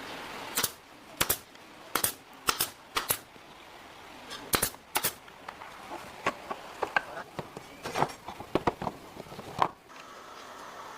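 An irregular series of sharp clicks and knocks, about fifteen in all, some in quick pairs, with the loudest near the end.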